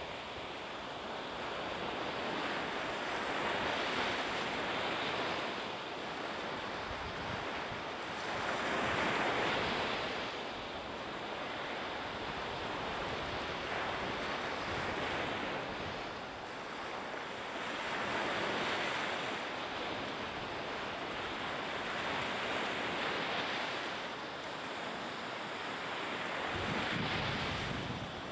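Sea waves surging and washing, a steady rush that swells and fades every few seconds.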